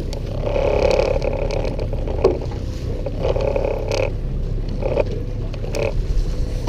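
A boat's motor and the water give a steady low rumble, with several short clicks and knocks over it.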